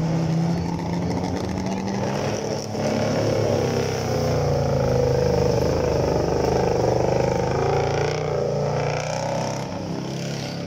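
Off-road tube-frame 4x4 buggy's engine revving as it drives through a muddy water pit, loudest about halfway through as it passes close, then fading as it pulls away.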